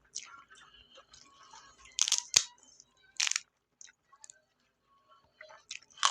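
Close-up eating sounds from a meal of stir-fried clams: a few short crackly, crunchy bursts of biting and chewing, the loudest about two seconds in with a sharp click, another a second later, and more near the end.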